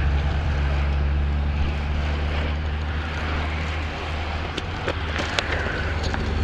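Steady low engine drone from the race convoy's motor vehicles, mixed with the rushing noise of a line of road cyclists riding close past. A few sharp clicks come about two-thirds of the way in.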